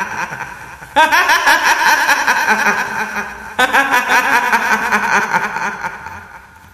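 Shrill female cackling of a kuntilanak ghost. Bursts of rapid laughter start about one and three and a half seconds in, each trailing away, and fade out near the end.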